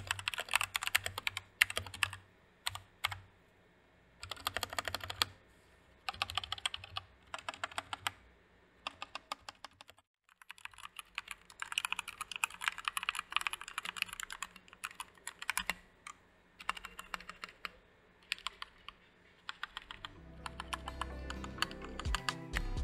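Typing sound test of two mechanical keyboards: first a Royal Kludge RKG68 on its stock Royal Kludge switches, then, after a short gap about ten seconds in, a Rakk Pluma on Outemu switches, modded with case foam, greased stabilisers and the Holee mod but unlubed. The keystrokes come in quick clattering runs broken by short pauses, and background music comes in near the end.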